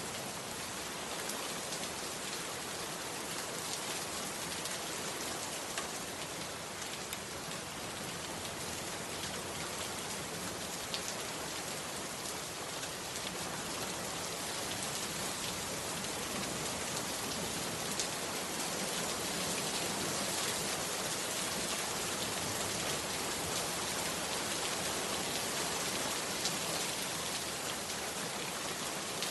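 Heavy rain falling steadily on a bamboo hut: a dense, even hiss with an occasional sharper drop tick. It grows slightly louder about halfway through.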